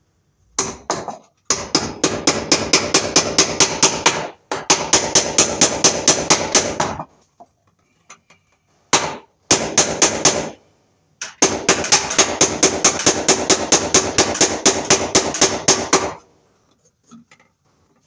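Hammer striking in quick runs of about five blows a second, broken by short pauses, driving nails to fasten a plastic electrical box to a wooden stud.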